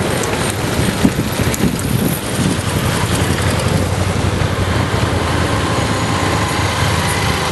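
Steady rush of longboard wheels rolling on asphalt, with wind on the microphone. From about five seconds in, a motorcycle engine's steady hum joins.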